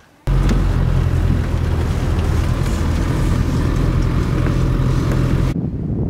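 Land Rover Defender engine running steadily on the move, a low even drone that cuts in abruptly just after the start and cuts off about five and a half seconds in.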